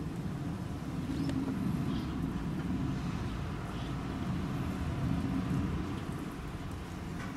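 Steady low rumble of outdoor background noise, with a few faint, short high-pitched sounds over it.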